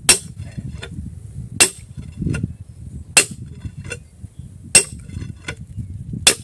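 Sledgehammer striking a hand-held steel drill rod on rock, hand-drilling a blast hole: five sharp metallic blows about a second and a half apart, each with a short ring, and fainter clinks between blows.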